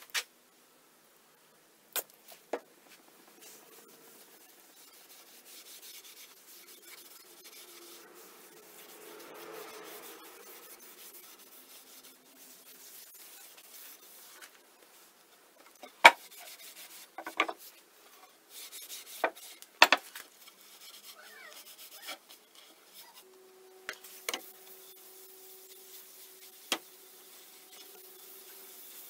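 Cloth rag rubbing oil finish into the end grain of a hardwood cutting board: a soft, even rubbing, broken by a few sharp clicks and knocks.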